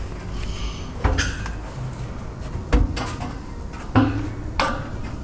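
Several sharp knocks and clicks spread over a few seconds, with some low rustling, as sheets of roofing and foil-foam insulation are handled and laid onto a balcony roof frame.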